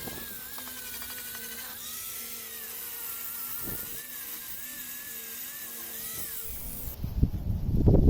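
Power tool with a sanding disc running against a steel narrowboat hull coated in old blacking, its whine wavering up and down in pitch as the load changes. About seven seconds in the whine stops and louder, irregular knocking and rubbing takes over.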